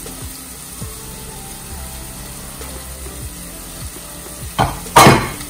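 Chopped onions sizzling steadily in oil in a pot, with two loud clatters near the end, plausibly the plastic spatula knocking and scraping the pot as stirring starts.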